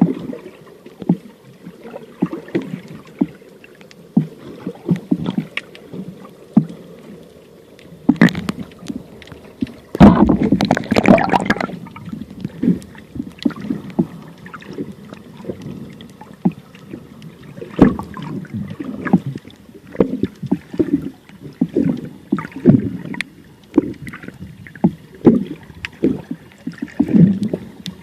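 Water sloshing and bubbling around a camera in the sea, with scattered knocks and a louder rush of bubbling about ten seconds in.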